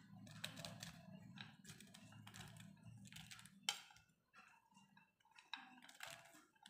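Faint, irregular soft taps and clicks as handfuls of cut okra pieces drop into a glass bowl of wet masala paste, with one louder tap a little past halfway.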